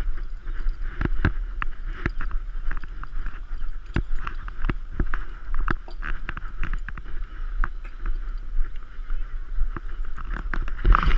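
Rapid, irregular thumps and knocks from a hand-held action camera carried at a run across grass, over a constant deep rumble of wind on the microphone.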